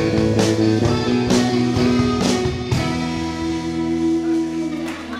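Live rock band with electric guitars and a drum kit. The drum hits stop a little past halfway, and the guitars hold a last chord that rings out and slowly fades, the close of the song.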